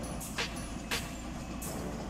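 Diesel engines of heavy construction equipment running steadily as a low rumble. Two short, sharp bursts, clanks or hisses, come about half a second apart near the start.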